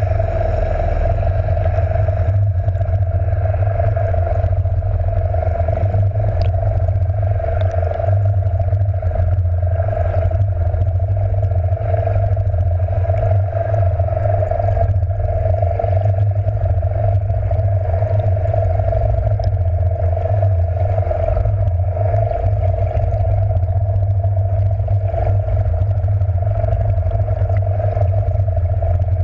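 Underwater recording from a camera on a trolling downrigger weight: a steady low rush of water streaming past the towed housing, with a steady mid-pitched hum running through it from the trolling boat's motor and the tow.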